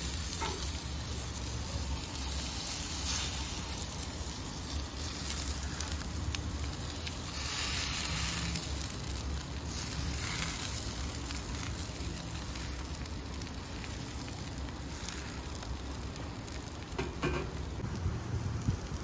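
Boiled potatoes sizzling in oil on a hot gas-grill griddle plate as they are pressed flat, the sizzle swelling louder a couple of times.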